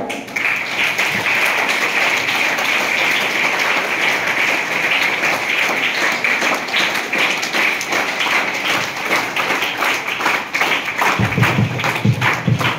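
A crowd of students applauding with steady clapping, which thins into more separate claps near the end, with a few low thumps.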